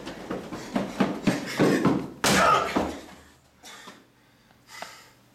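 Quick running footsteps, then a loud slam about two seconds in as a man drop-kicks a heavy wooden table, with a few fainter thuds after; the table holds without breaking.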